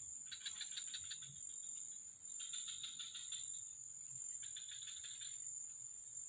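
Insects calling: a steady high-pitched drone, with a rapid pulsing trill that comes in three bursts of about a second each, roughly two seconds apart.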